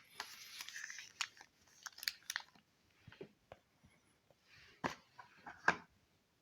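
Rustling and crinkling of packaging being handled, with a series of sharp clicks and taps, the loudest two near the end.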